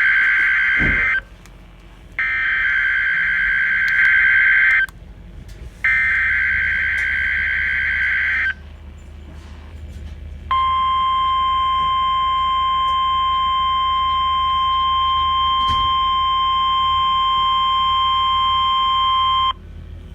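NOAA Weather Radio weekly test signals: three bursts of SAME header data, a harsh warbling digital screech, the first short, separated by gaps of about a second, then after a two-second pause the steady 1050 Hz warning alarm tone, held for about nine seconds before it cuts off.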